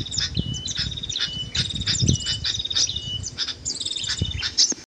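Many small songbirds chirping and trilling at once, dense and overlapping, with short high held whistles among them and a few soft low thumps.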